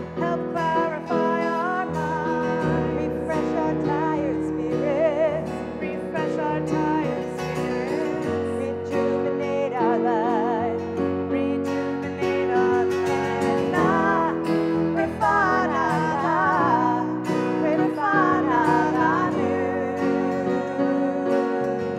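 Two women singing a slow prayer song with vibrato, at times in two parts, accompanied by acoustic guitar.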